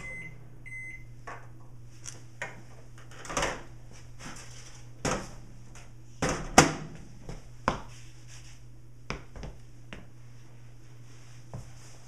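Microwave oven stopped by hand: its running hum cuts off and it gives two short beeps. After that comes a scattered series of clicks and knocks over a steady low hum, the loudest about six and a half seconds in.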